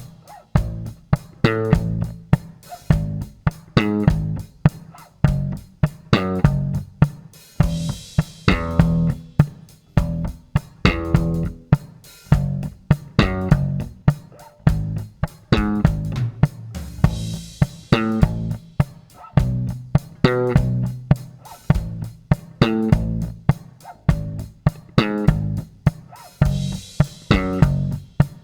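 Yamaha Motion B MB40 electric bass played in a steady run of plucked notes, demonstrating its tone with a newly fitted capacitor, over a drum backing with a cymbal wash about every nine seconds.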